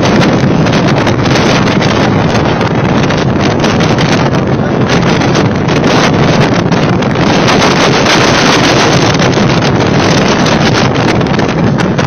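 Storm-force wind blasting straight onto a phone's microphone: loud, continuous buffeting with rapid flutters and no letup.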